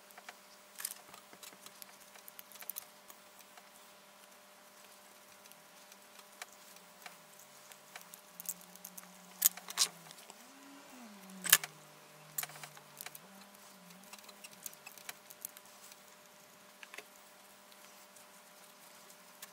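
Scattered small clicks and light metallic taps of tweezers, pliers and lighter parts being handled over a steel tray, with a few sharper clinks in the middle.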